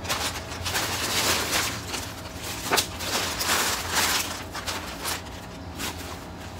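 Thin plastic bag crinkling and rustling in irregular bursts as it is handled and opened, with a few sharper crackles.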